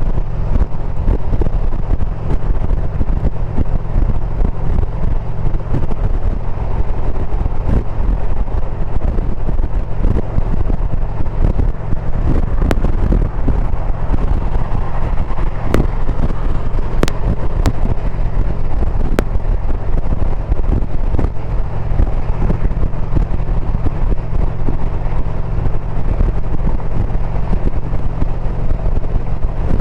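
A 2022 Indian Pursuit motorcycle's V-twin engine running steadily at road speed, with wind rushing over the microphone.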